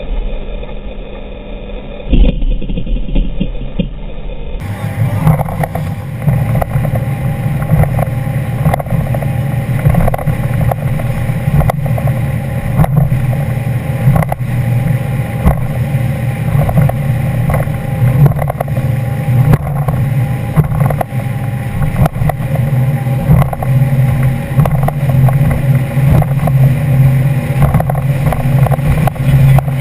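Cigarette Cafe Racer powerboat's engines running steadily at speed, with wind and rushing water on the open deck.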